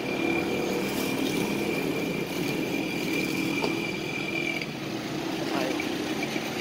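City street traffic: vehicle engines running in a steady wash of noise, with a steady high-pitched tone that stops about four and a half seconds in.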